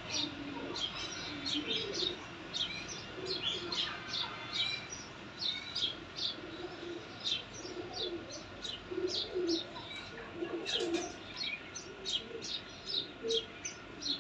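Goslings peeping: a constant run of short, high-pitched chirps, two or three a second, with soft low calls underneath.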